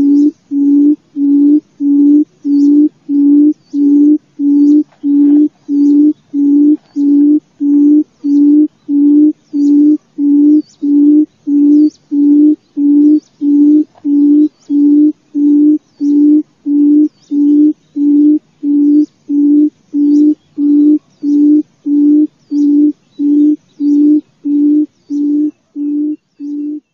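Female barred buttonquail calling: a low hoot repeated evenly about one and a half times a second, growing fainter near the end. This is the advertising call used as a lure to draw kruoch in.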